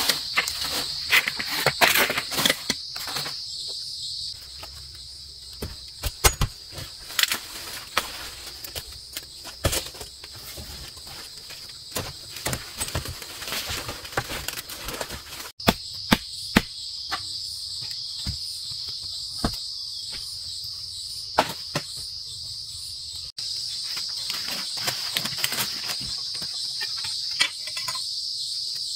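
A steady, high-pitched chorus of insects, with many irregular sharp knocks and clicks over it, two of which break off abruptly mid-way.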